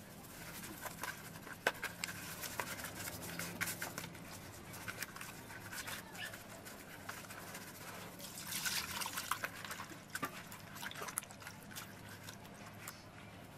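Hands rubbing salt into a whole wet fish in a plastic basin: wet rubbing and scraping with many small clicks, loudest about nine seconds in.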